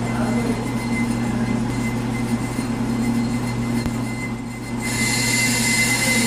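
A brake lathe runs with a steady hum. About five seconds in, a loud, high hiss with a squeal comes in suddenly and keeps on, as the cutting bit bites into the brake rotor.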